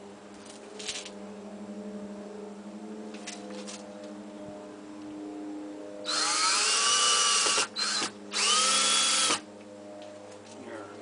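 Yellow DeWalt cordless drill driving a screw through the aluminium brow trim into the trailer's side. It runs in two bursts about six seconds in, about a second and a half and then about a second, with a short blip between. The whine rises as the motor spins up.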